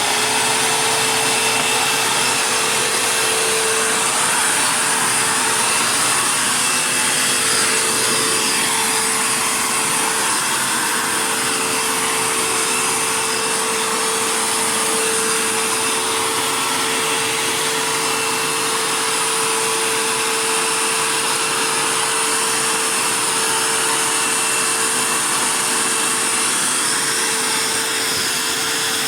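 Dirt Devil Jaguar Feather Lite bagged upright vacuum cleaner running steadily: a loud, even rush of motor and airflow with a constant whine through it.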